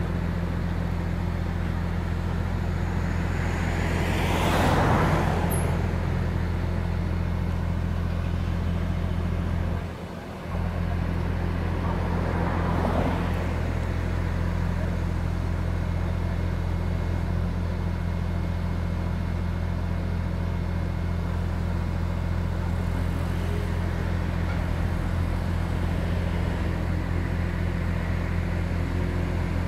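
Beiben 8x8 crane truck's diesel engine running steadily, driving the hydraulics of its truck-mounted crane. The engine note dips briefly about ten seconds in, and a rushing noise swells and fades around five seconds in and again near thirteen seconds.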